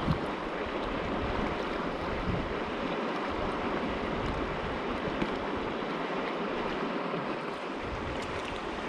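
Steady rush of a shallow creek running over rocks close by.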